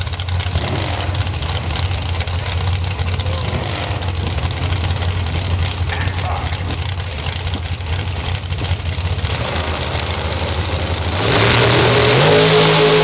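Dragster engines running at the starting line, a steady low rumble; about eleven seconds in they go to full throttle at the launch, suddenly much louder, with the engine pitch rising.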